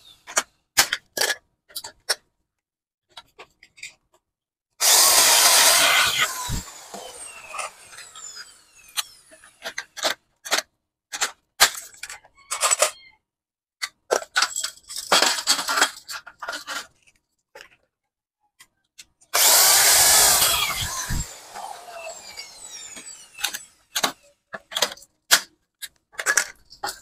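Hand pop-rivet gun squeezed over and over, a string of sharp clicks and snaps as blind rivets are set into an aluminium cabinet frame. Twice a loud rasping noise of about two seconds breaks in, about five seconds in and again about two-thirds of the way through.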